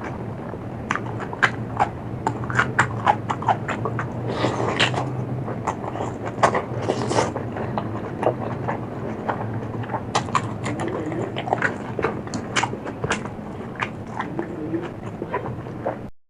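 Close-miked chewing and biting of food, with many sharp crunches and wet mouth clicks over a steady low hum.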